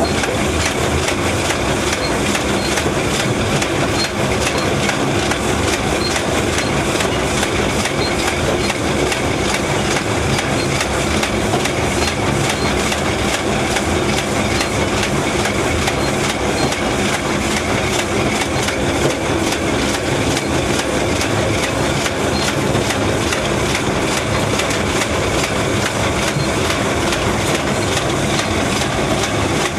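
MDT-20K double-track soap wrapping machine running, its conveyors and pushers moving soap bars with a steady, rapid, evenly repeating mechanical clatter.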